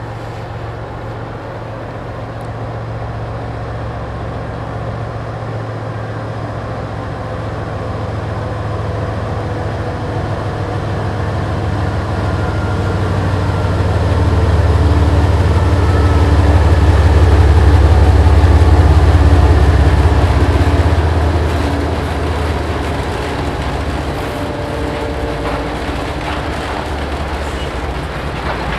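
GE ES44AC diesel-electric locomotive's GEVO-12 engine running as it pulls a string of tank cars past, a steady low drone that grows louder to its loudest a little past halfway, then eases off as the tank cars roll by.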